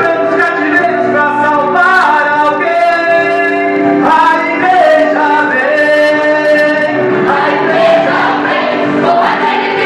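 Vocal group of male and female voices singing a Christian worship song in harmony, holding long notes.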